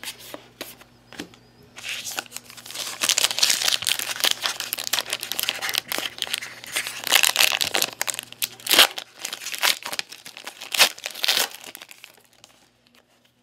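A yellow Panini trading-card pack wrapper being torn open and crinkled by hand, a dense crackling rustle that starts about two seconds in and dies away near the end. A few light clicks of cards being handled come first.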